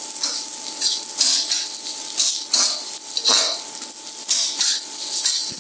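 Shallots and cubed Chinese-style bacon sizzling in hot oil in a wok, with irregular crackling pops and a faint steady tone underneath.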